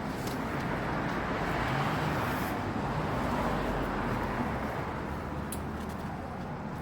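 Traffic noise from a passing road vehicle: a steady rush that swells about two seconds in and slowly fades.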